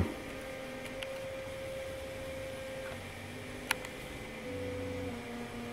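Ortur Laser Master 2 laser engraver running a slow cutting pass: the stepper motors driving the head give a faint whine whose pitch shifts in steps as the head follows a curve, over a steady hum. A single sharp click sounds a little over halfway through.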